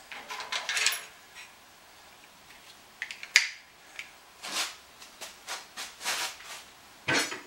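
Scattered handling noises: short rubbing swishes and sharp clicks, with a louder clatter near the end, as tools and parts are picked up and set down around a bandsaw.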